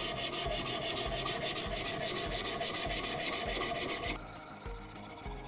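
Coarse 100/80-grit diamond stone on a guided knife sharpener rasping in rapid back-and-forth strokes along the edge of a very hard (69 HRC) CPM Rex121 steel blade, roughing out the bevel. About four seconds in, the scraping drops much quieter.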